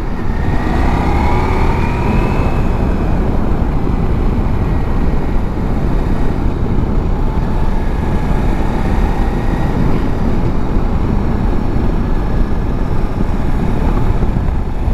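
Ducati Multistrada V4S's V4 engine running on the road under steady wind rush on the microphone. A rising tone in the first two or three seconds, the engine pulling up through the revs.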